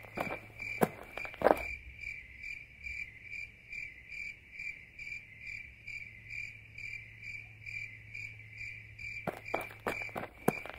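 Crickets chirping steadily, a high pulsing chirp about two or three times a second, over a faint low hum. Sharp knocks sound in the first second and a half, the loudest at about a second and a half, and again near the end.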